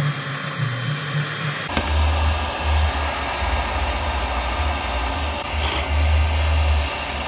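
Hot air rework station blowing a steady stream of hot air, at air setting 4 and 240 degrees, over a phone's charging connector to melt its solder, with a low fan hum. About a second and a half in there is a click and the hum deepens.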